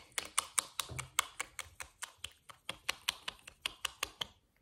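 Plastic lip-gloss tube clicking in the hands: a quick, even run of sharp taps, about five a second, that stops shortly before the end.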